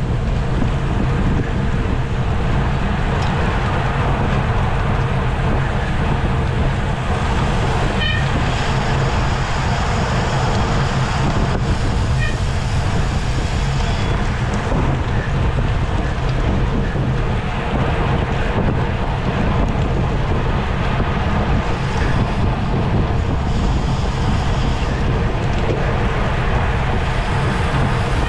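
Wind rushing over the microphone of a camera riding on a racing bicycle at speed: a steady, loud, low rumble with road noise underneath.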